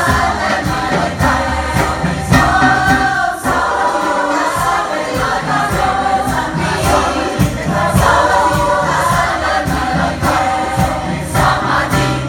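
Large choir of children and adults singing with a band, drums keeping a steady beat under the voices and a bass line. The music cuts off sharply at the end of the song.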